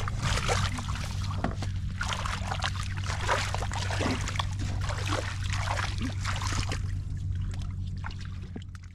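Feet wading and splashing through shallow muddy water, irregular sloshes one after another over a steady low hum, fading out near the end.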